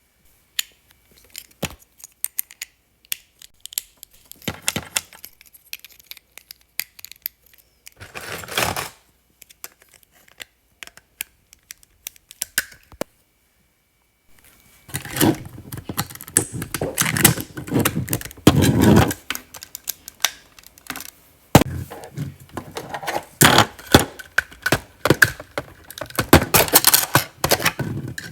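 Small hard plastic Lego Technic parts clicking, knocking and rattling as they are handled, with scattered clicks at first and busier rattling from about halfway.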